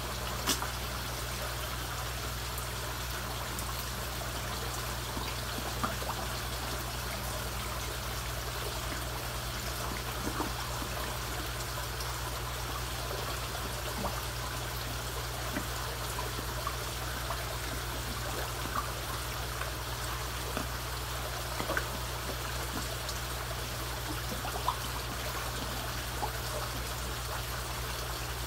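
Steady trickle of water running into a koi pond over a low, steady hum, with scattered small splashes as koi churn the surface, feeding from a hand.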